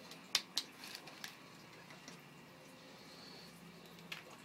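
A few sharp clacks from a young alligator snapping its jaws at food held above it: two close together about a third of a second in, another a second in, and one more near the end.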